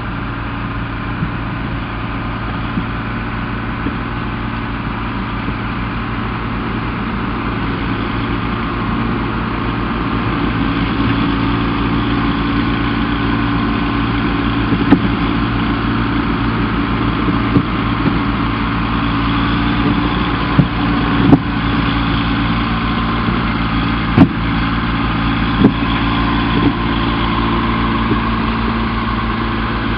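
Tigercat slash forwarder's diesel engine running steadily under light load as the machine drives up onto a lowbed trailer, getting a little louder about ten seconds in. In the second half its steel bogie tracks make half a dozen sharp metal clanks.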